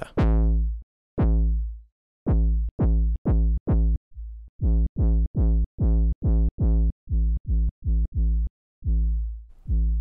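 Sylenth1 synth impact patch played over and over: a sine wave with a kick-like pitch drop and short decay, heavily driven and distorted. It comes as about twenty low hits, the first two longer, then rapid short ones a few a second.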